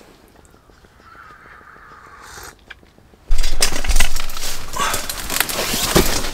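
Quiet at first. About three seconds in, loud rustling and crackling of tent fabric starts suddenly, with deep bumps of handling on the microphone.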